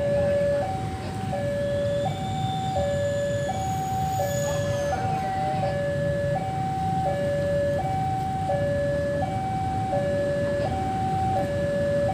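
Railway level-crossing warning alarm sounding continuously, an electronic two-tone hi-lo signal alternating about every 0.7 s, warning that a train is approaching with the crossing closed.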